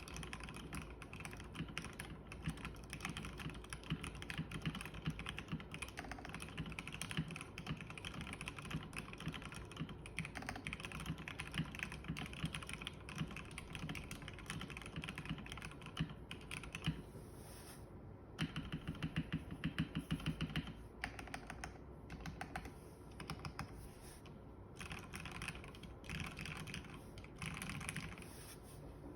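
Continuous typing on a Matrix Noah mechanical keyboard with lubed Marshmallow switches, an aluminium plate and EPBT keycaps. Typing pauses briefly about two-thirds in, then picks up again with a louder, faster run of keystrokes.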